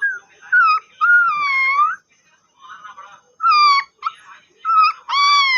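Beagle puppy whining in high, cat-like mewing cries, about six calls with short gaps between them. The longest comes about a second in and another near the end.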